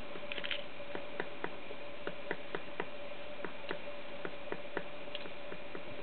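Magellanic woodpecker pecking at a tree trunk: a series of sharp, irregularly spaced taps, about two to four a second.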